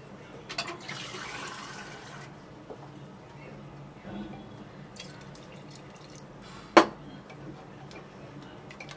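A little water poured into a pressure cooker of thin curry gravy for about a second. Then a silicone spatula stirs the liquid with soft sloshing and small clicks. A single sharp knock comes near seven seconds in.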